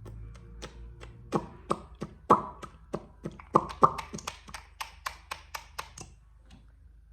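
A quick run of sharp taps, about four a second for some five seconds, then stopping.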